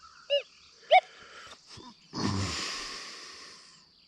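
Two short pitched beeps from a Deus 2 metal detector as the coil passes over a nickel. About two seconds in comes a louder rushing, breathy noise that fades away over nearly two seconds.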